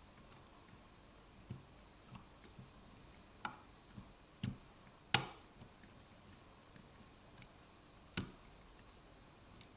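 Pins and a lock pick clicking inside an ASEC pin-tumbler lock cylinder as it is being picked: scattered sharp clicks at irregular spacing, the loudest about five seconds in.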